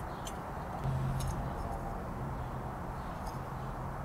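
Steady workshop background noise with a low hum that comes in about a second in, and a few faint light clicks as a steel sliding caliper is handled against a square steel bar.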